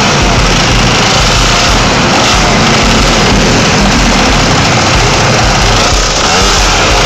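Two-stroke Yamaha Jog scooter with a tune pipe (expansion-chamber exhaust) running very loud while being ridden, a harsh high buzz without a break.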